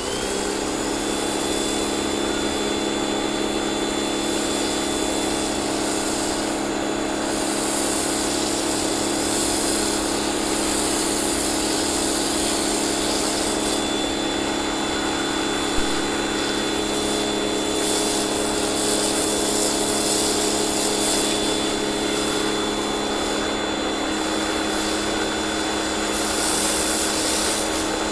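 Pressure washer running steadily, its motor and pump humming under the hiss of soap foam being sprayed onto a car.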